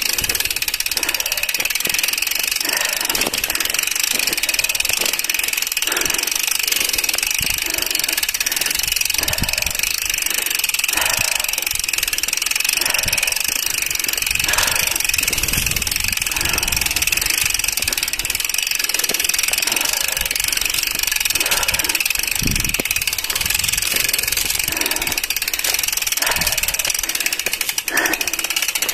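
Mountain bike moving up a dirt trail: steady rumble of tyres on dirt and handling noise, with scattered knocks, under a steady high drone.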